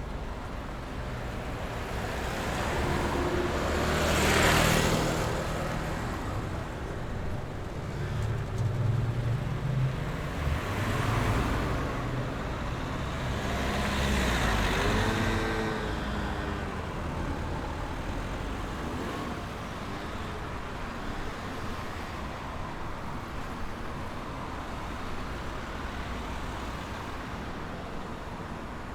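City street traffic ambience: a steady rumble of road traffic with several vehicles passing close by, one after another. The loudest pass-by swells and fades about four seconds in, and two more follow around eleven and fifteen seconds in.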